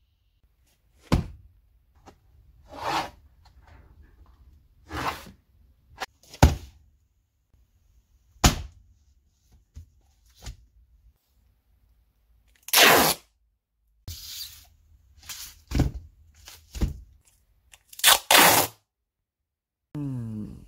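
Packing noises: a cardboard mailer handled and folded, with sharp knocks and a few short rasps of packing tape pulled off the roll, the longest near two-thirds of the way through and again near the end.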